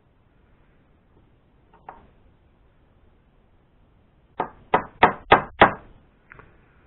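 Five quick hammer blows on a metal pin, about three a second, after a single light tap, driving it to open up a hole in a mini lathe part.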